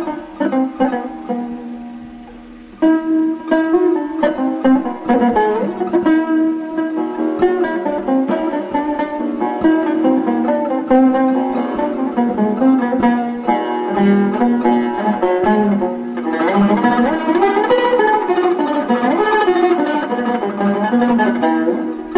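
Turkish tanbur, a long-necked fretted lute, playing a plucked melody in makam Hüzzam. One phrase dies away, then a loud new run of notes starts about three seconds in, with sliding, bending notes near the end.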